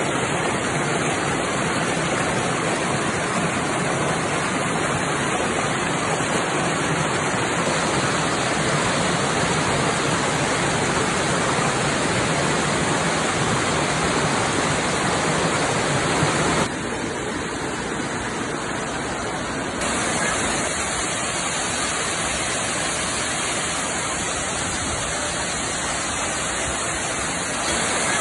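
Water of a stream and natural waterfall rushing steadily. The sound turns duller and a little quieter about 17 seconds in, then brightens again about 3 seconds later.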